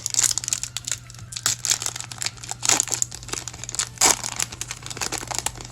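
Foil booster-pack wrapper crinkling and tearing as a Yu-Gi-Oh Maximum Gold pack is handled and opened: an irregular run of sharp crackles, loudest about a third of a second in, near the three-second mark and at about four seconds.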